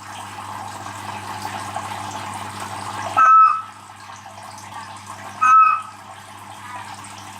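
Bell's horned frog calling: two short, loud croaks about two seconds apart, after a steady hiss in the first three seconds.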